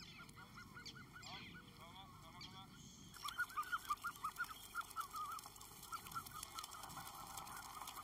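A flock of young eiders calling: fast runs of short repeated calls, faint at first and louder and busier from about three seconds in.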